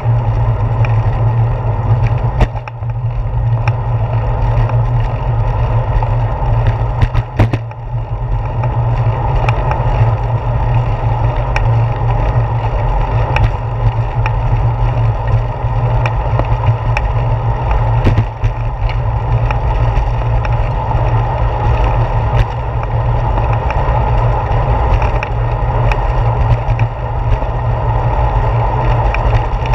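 Steady wind buffeting and rolling vibration picked up by a handlebar-mounted GoPro Hero 4 on a moving bicycle. The heavy low rumble is broken by a few sharp knocks as the bike jolts over bumps in the concrete path.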